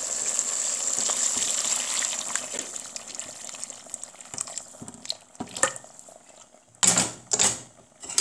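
Boiling water poured into a pot of seared meat and onions, hissing and splashing for about three seconds before fading away. After that come a few sharp knocks against the pot, the loudest two close together near the end.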